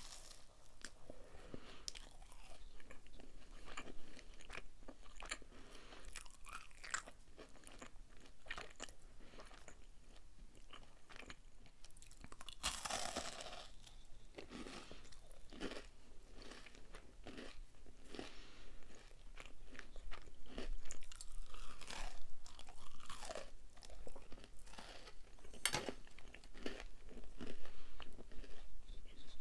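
Close-miked chewing and biting of a marbled cookie brownie, with many small wet mouth clicks; louder toward the end.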